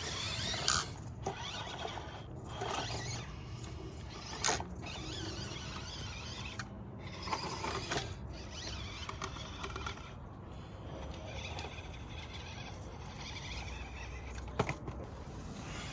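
Axial SCX24 mini RC crawler working its way over obstacles: small gear-drive whirring with scrapes and clicks of plastic against the surface, and a few sharp knocks.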